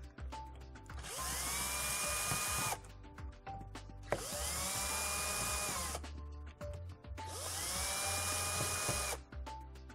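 Cordless drill/driver backing out the screws that hold the pump head on, in three short runs of about two seconds each. Each run has a motor whine that rises as it spins up and then holds steady. Background music plays between the runs.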